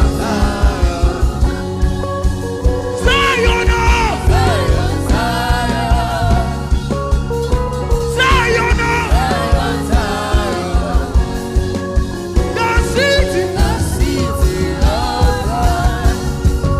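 Live gospel worship band playing a steady groove on drums, bass and sustained keyboard chords. A wavering lead melody comes in three times, a few seconds apart.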